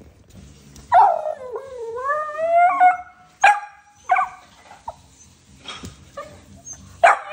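Boston Terrier puppy calling and barking: a long drawn-out call about a second in that dips and then climbs in pitch, followed by short sharp barks, three of them loud.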